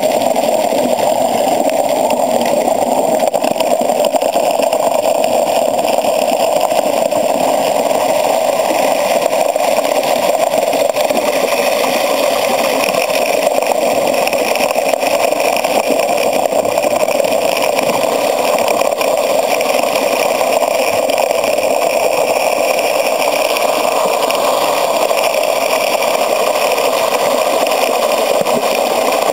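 Steady rush of creek water flowing out of the end of a 4-inch corrugated Big-O pipe running as a gravity siphon dredge.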